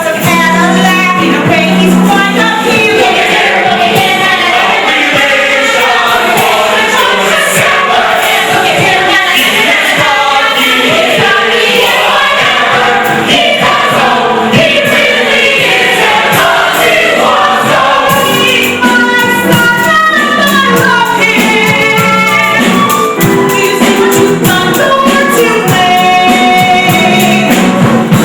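A group of stage voices singing a show tune together over live instrumental accompaniment.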